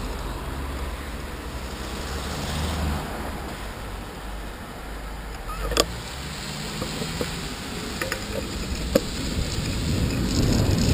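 A delivery van's engine idling just ahead, a steady low rumble, then moving off once the light changes, with a sharp click about six seconds in. Toward the end, wind and tyre noise rise as the bicycle gets going again.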